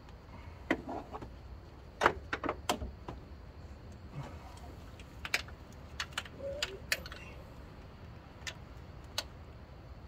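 Hand tools being handled during work under a car: scattered sharp clinks and knocks, in two clusters about two seconds and six seconds in.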